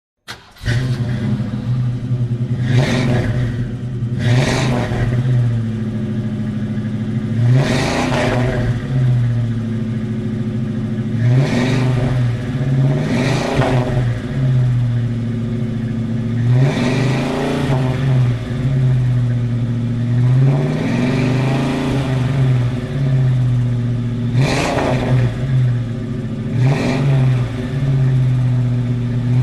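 Ford Mustang engine idling with a steady low note, blipped up in revs and back down about nine times at irregular intervals.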